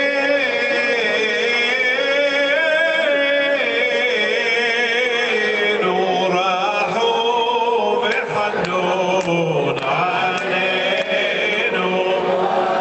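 Men's voices chanting Selihot penitential prayers to a wavering, ornamented Middle Eastern-style melody, heard amid a vast crowd of worshippers.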